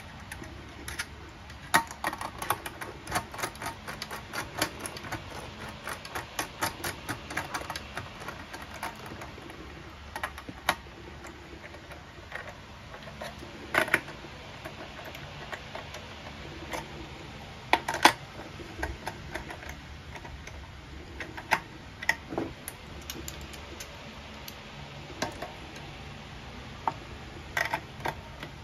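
Quick, uneven small metallic clicks and taps for several seconds, then occasional single sharper clicks: hand tools and screws being worked by hand on a spray turbine's motor assembly.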